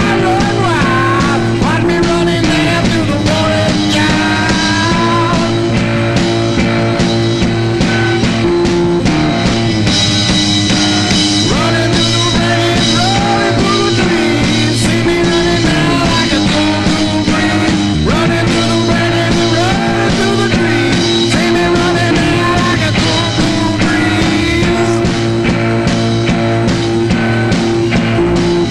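Psychedelic doom metal played by a rock band: a dense, steady wall of sustained notes with a repeating low riff and bending notes above it.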